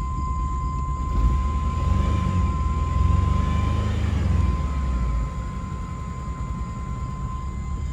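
Chevrolet S10 pickup's four-cylinder engine running rough with a bad misfire, traced to cylinder 2. It is revved up about a second in and drops back to idle about five seconds in, with a steady high whine throughout.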